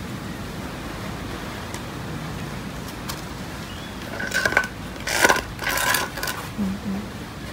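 Metal feeding plates clattering and scraping on a concrete floor in three loud bursts about four to six seconds in, with a short metallic ring in each.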